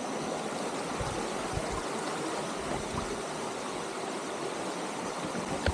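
Stream water rushing steadily over rocks, with a few low thumps about one to two seconds in.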